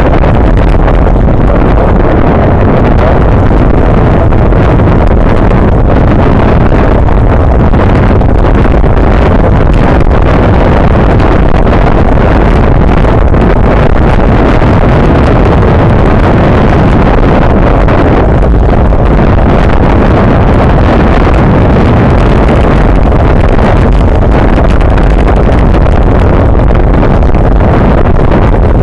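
Loud, steady wind rush on the microphone of a camera mounted on a racing bicycle at speed.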